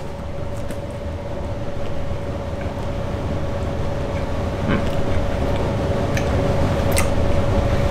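A steady hum with one constant mid-pitched tone over a low rumble, with a few faint clicks.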